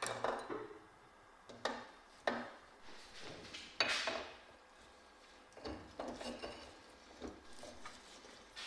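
Hard objects being handled: about seven separate knocks and clinks at irregular intervals, with a short scrape near the middle.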